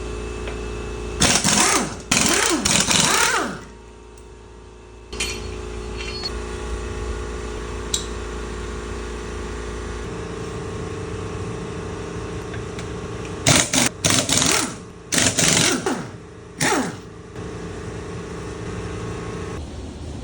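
Machine sounds: a steady hum, broken by loud, rough bursts with pitch sliding within them, once about a second in and several times from about 13 to 17 seconds in.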